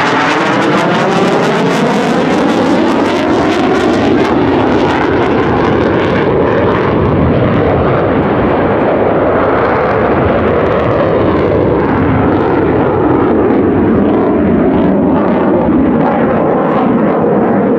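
Jet roar of a Swiss Air Force F/A-18C Hornet's twin turbofan engines as the fighter flies its display overhead, with a slow sweeping rise and fall in pitch as it passes and turns.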